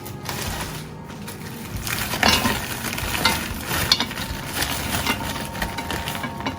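Frozen chopped spinach being tipped into an empty cooking pot: a crackly rustle of frozen pieces with several sharp knocks against the pot, the loudest about two to four seconds in.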